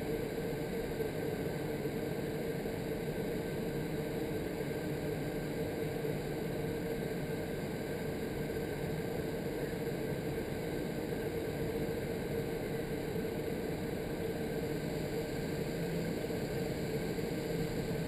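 Indoor vertical wind tunnel running: a steady rush of fan-driven air up through the flight chamber, with a steady hum underneath.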